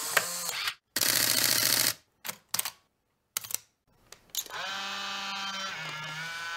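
Film camera sounds: a dense burst of rapid clicking about a second in and a few short clicks after it. From about four seconds in comes a steady humming whir whose pitch dips briefly and returns.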